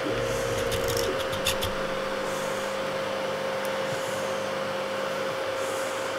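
Anycubic Kobra 3D printer's stepper motors whining as they drive the print head and bed into position to begin automatic bed leveling, with a few sharp clicks about a second in. A steady hum runs underneath, and the motor tones stop about five seconds in.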